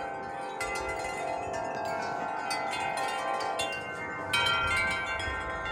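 Wind chimes ringing continuously in gusty wind, many tubes struck over and over so their tones overlap, with a flurry of fresh strikes a little past four seconds in. Wind rumbles low on the microphone near the end.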